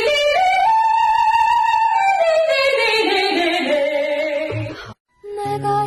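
Female singer holding a long high note, then running down through a descending melismatic phrase. The audio cuts off abruptly about five seconds in, and a new song with steady instrumental notes starts just before the end.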